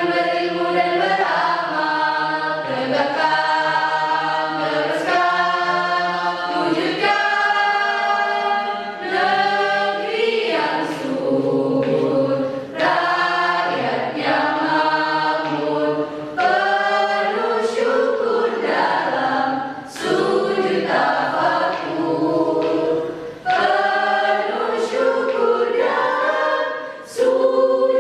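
Choir singing a song in held, sustained phrases, with short breaks for breath between them.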